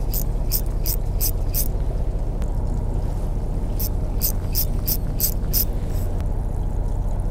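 Spinning rod and line snapped upward in quick jerks to work an egi squid jig: two runs of about six sharp swishes, about three a second, with a single one near the end. A steady low rumble runs under them.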